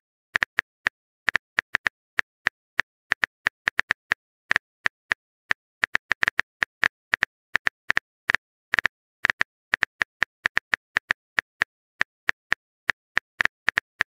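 Keyboard typing-click sound effect from a texting-story video: short, sharp clicks at an uneven pace, about four a second, as the next message is typed out.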